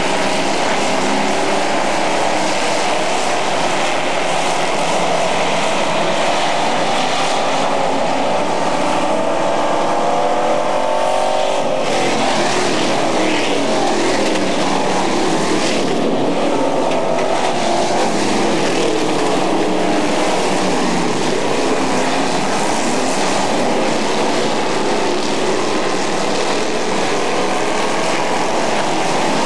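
Several dirt-track super trucks' engines racing around the oval at full throttle, loud and continuous, their pitch rising slowly as they accelerate. The sound changes abruptly about twelve seconds in.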